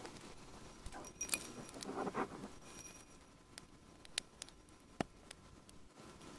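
Sparse light clicks, ticks and soft rustles of fingers handling a small glass vessel, with two sharper ticks about four and five seconds in.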